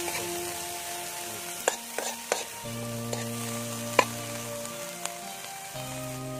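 Red weaver ants sizzling as they are stir-fried in a metal wok, with a metal spoon scraping through them and clicking against the pan a few times, the loudest click about four seconds in.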